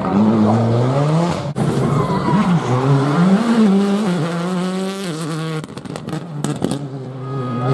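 Rally car engines at full throttle passing by, with a sudden edit about one and a half seconds in. After it, the Škoda Fabia R5's turbocharged four-cylinder revs rise and fall through gear changes. A few sharp pops come about six seconds in as the engine note fades.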